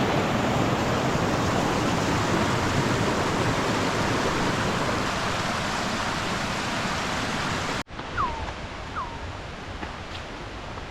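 Rushing water of a forest stream or waterfall, a loud steady hiss that cuts off about eight seconds in. After that comes quieter forest background with a few short, falling bird whistles.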